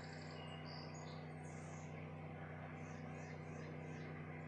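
Quiet riverbank ambience: faint, short high chirps come and go over a steady low hum.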